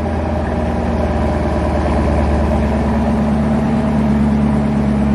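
The 6.2-litre LT1 V8 of a 2021 Chevrolet Camaro running at a steady idle on its stock mufflers after a cold start. Its note shifts slightly about three seconds in.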